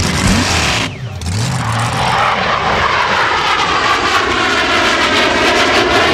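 A fixed-wing aircraft passing low overhead: after a brief dip about a second in, its engine noise builds and sweeps past with a phasing whoosh.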